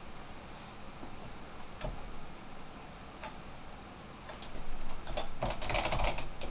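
A few scattered clicks, then rapid computer keyboard typing from about four seconds in.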